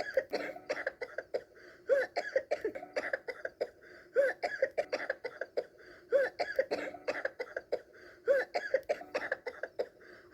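A rapid run of small, high-pitched coughs. The same run repeats about every two seconds, as if looped.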